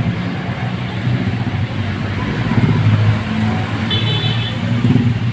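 Street traffic of motorcycles and motorcycle tricycles running past with a steady low engine rumble. A short high beep sounds about four seconds in.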